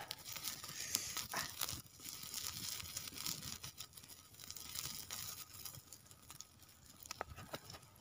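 Irregular rustling and crinkling with scattered sharp clicks.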